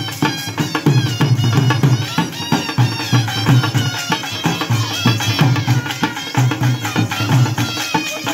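Live folk dance music from a small band: dhol drums beat a steady, driving rhythm under a wind instrument playing a high, wavering melody.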